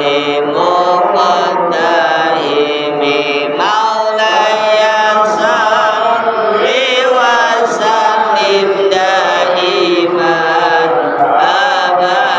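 Arabic devotional chanting of an istighosah, sung in long melodic phrases that run on without a break.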